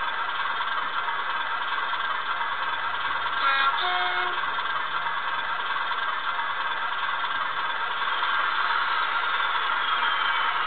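CTLS76 sound chip in a Graham Farish N gauge class 37 model locomotive playing a steady class 37 diesel engine sound, through the model's small speaker with almost no bass. A few brief steady tones come in about three and a half seconds in.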